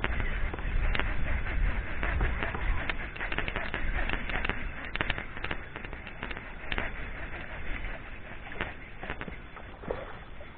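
Baitcasting reel cranked steadily to bring in a hooked fish, heard as a dense irregular crackle of small clicks and handling noise over a low rumble of wind on the microphone, slowly fading.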